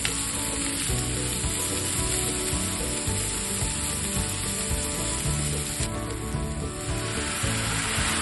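Food sizzling as it fries in a pan, with soft background music underneath.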